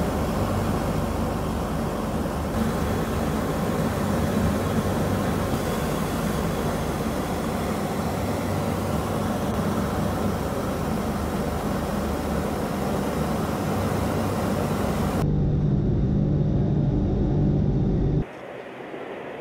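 Steady rushing roar of an aircraft in flight, engine and airflow noise with no change for about 15 seconds. A cut then brings the lower, droning hum of a Tu-95 bomber's turboprop propellers, steady in pitch. Near the end a second cut drops to a much quieter sound.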